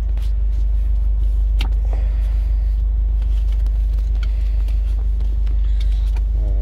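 Steady low rumble inside a car cabin, with a few light clicks and faint rustling as the service history books are taken out and handled.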